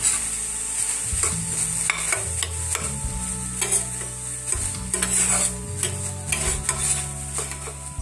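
A spatula scraping and stirring thick tomato-and-spice masala with curd in a stainless-steel frying pan, the paste sizzling in hot oil, with irregular scrapes against the pan.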